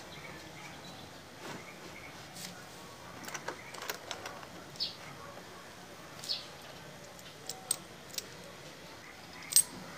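Scattered light metallic clicks and clinks of motorcycle transmission parts being handled over an open engine crankcase, with the loudest clink near the end.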